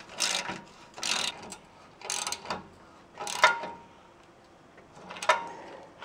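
A hand socket ratchet clicking in three short bursts while tightening the bolts on an exhaust pipe flange. Later come two sharp metal clinks that ring briefly, about midway and near the end.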